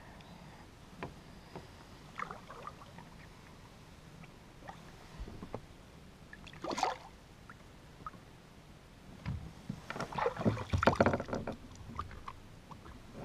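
Faint water sounds and light knocks at the side of a bass boat as a largemouth bass is released into the lake, with a denser run of small splashes about ten seconds in.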